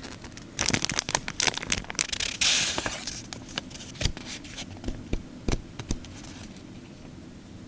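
Stationery packaging being handled: plastic sleeves and paper sticker packs crinkling and clicking, with a short tearing rustle in the middle, then a few scattered taps.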